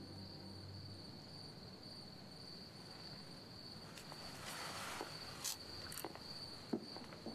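Crickets chirping steadily in a quiet night ambience. A low held music note fades out in the first second, a brief soft rustle comes about four and a half seconds in, and a few light clicks follow near the end.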